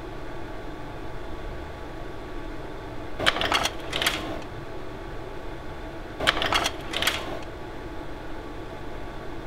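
Carousel slide projector changing slides: two clattering mechanical cycles about three seconds apart, each a pair of clacks, over the steady whir of the running projector.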